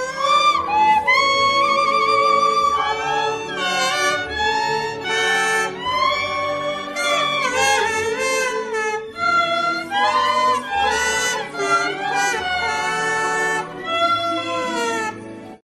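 Background music with a melody of sliding and wavering notes over a soft low accompaniment, cutting off abruptly near the end.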